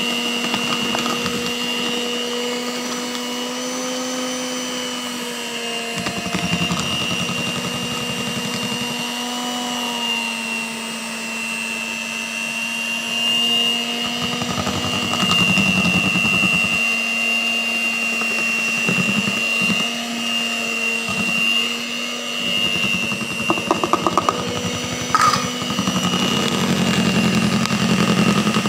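A Miyako electric hand mixer beats sponge-cake batter with flour being mixed in. Its motor whines at a steady pitch, with uneven low churning from the beaters in the thick batter and a brief run of rapid ticks near the end.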